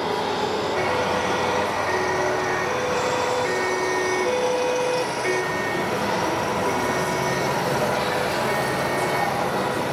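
Two-tone emergency siren from an RC model Volkswagen T2 ambulance's sound module, switching between a higher and a lower note about every three-quarters of a second, starting about a second in. Steady background noise from the busy show hall runs beneath it.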